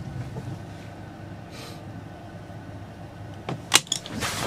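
Motorboat engine idling with a low, steady hum, the gear just taken out into neutral. A sharp click sounds near the end.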